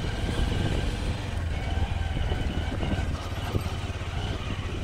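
Honda SP 125's single-cylinder four-stroke engine running steadily as the motorcycle rides slowly over a rough dirt track, with a low rumble of ride noise.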